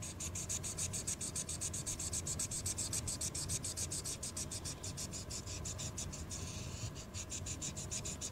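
Imagine Ink marker scribbling on coloring-book paper: rapid back-and-forth scratchy strokes, about six a second, blending into one continuous rub for a moment past the middle.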